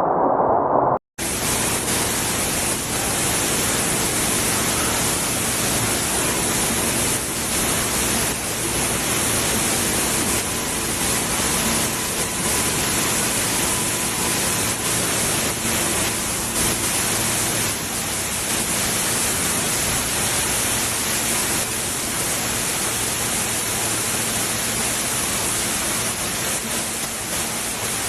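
Heavy rainstorm: a steady, loud rushing hiss with no breaks. It starts just after a sudden cut about a second in.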